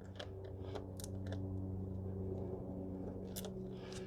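Scattered faint clicks and small knocks of hand work on engine-bay parts, over a steady low hum.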